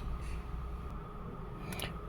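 Low steady background hum, with two quick light clicks near the end.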